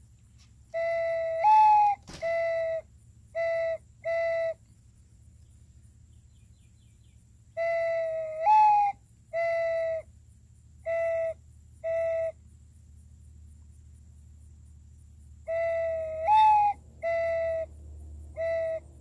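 Handmade solid-wood dove call, a breath-blown whistle, sounding three dove-coo phrases. Each phrase is a longer hollow note that steps up in pitch partway through, the double tone made with the call's side port hole, then three short lower coos.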